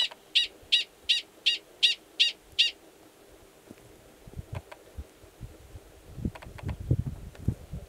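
Male Gunnison's prairie dog giving its mating call, a string of eight sharp, high chirps at about three a second that stops after nearly three seconds. The call sounds just like the alarm call; here it courts an estrous female waiting in a nearby burrow. In the second half, low rumbling thumps.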